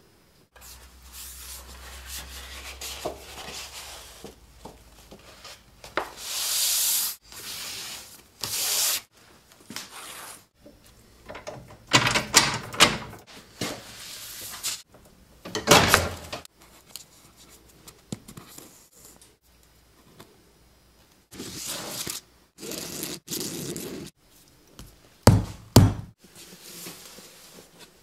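Bookbinding work on paper and board: a string of separate rubbing, sliding and scraping noises, each lasting about a second, with a pair of sharp knocks near the end.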